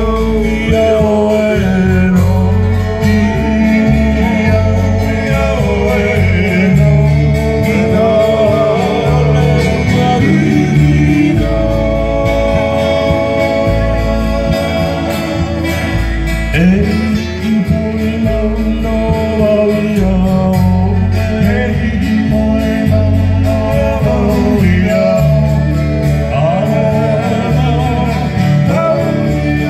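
Live Hawaiian music: male voices singing over strummed acoustic guitar, twelve-string guitar and bass.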